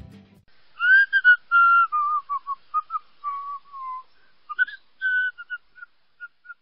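A short whistled tune, made of clear held notes that step downward, then rise again into a few short notes that fade out near the end. The guitar music before it cuts off just as it begins.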